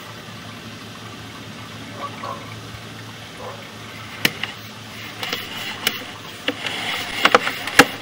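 Sewer inspection camera inside a lined drain pipe: a steady low hum and a water-like hiss, with several sharp clicks and knocks that come more often in the second half.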